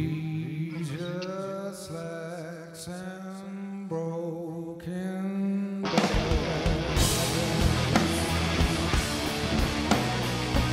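Live rock band: a male lead vocal sings over a held low guitar note, then about six seconds in the full band comes in with drums and distorted electric guitars, and the music gets louder.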